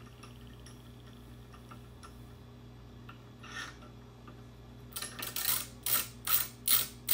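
Ratcheting tap handle clicking as a straight-flute tap is backed out of a freshly tapped hole in an engine block. Faint ticks at first, then, about five seconds in, louder and harsher metallic strokes at about three a second.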